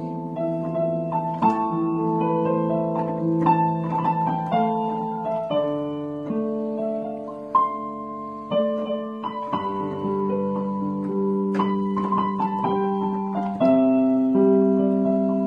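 Electronic keyboard played with a piano voice: a melody over held chords, the notes changing every second or so.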